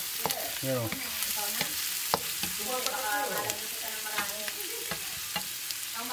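Peeled quail eggs sautéing with ginger and chopped aromatics in oil in a frying pan: a steady sizzle, with a wooden spatula scraping and tapping against the pan as it stirs.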